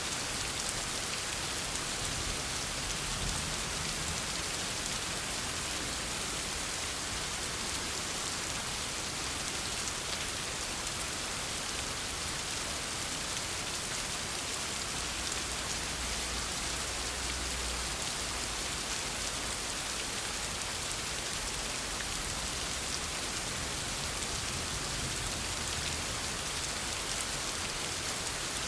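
Heavy rain falling steadily on a surface: an even, unbroken hiss of drops.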